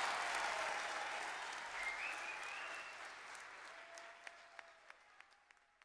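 Audience applauding, fading out steadily, with only a few scattered claps left near the end.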